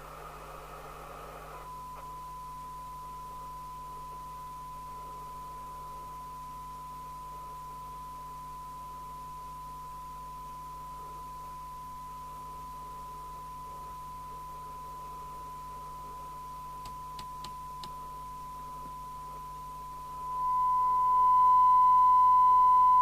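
Steady 1 kHz test tone from a signal generator, received by a Midland 77-104GTL FM CB radio and played through its speaker. Receiver hiss cuts out about two seconds in as the tone comes on, a few faint clicks follow later, and near the end the tone becomes much louder, over a faint steady hum.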